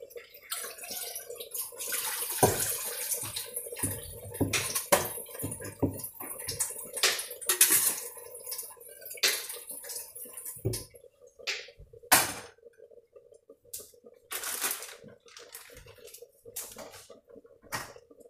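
Kitchen sink tap running while a pan is rinsed, with knocks and clatter of cookware against the sink. The water runs steadily for several seconds, then comes in shorter bursts.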